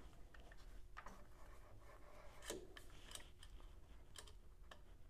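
Faint clicks and rubbing from hands working at a metal lathe's chuck and the clamped spindle shaft, with one sharper click about halfway.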